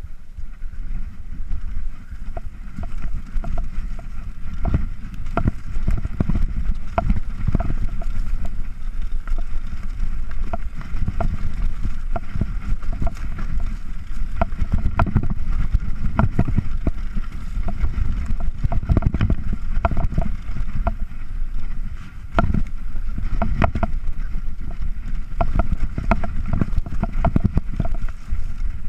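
Downhill mountain bike ridden fast over a rough dirt track, heard from a chest-mounted camera: a steady low wind rumble on the microphone with frequent knocks and rattles as the bike hits bumps.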